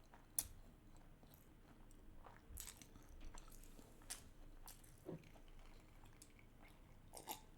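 Faint close-up chewing of salmon sushi, with scattered soft wet mouth clicks and smacks and a sharp click about half a second in.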